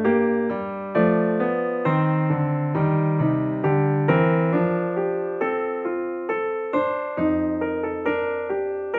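Background music on a piano-type keyboard: notes struck about twice a second, each fading away.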